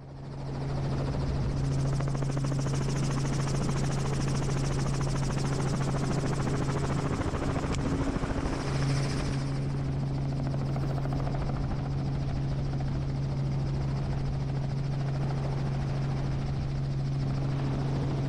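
Helicopter engine and rotor running steadily: a loud, even hum with fast rotor-blade chop that swells in over the first second or two and then holds.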